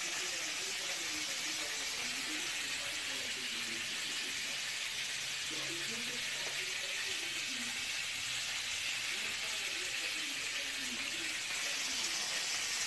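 Steady sizzling of food frying in a pan, with faint voices in the background.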